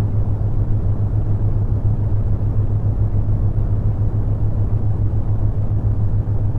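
Brown noise: a steady, deep rumbling hiss, strongest in the lows and thinning toward the highs, with a steady low hum near 100 Hz underneath from the theta-wave tones mixed in.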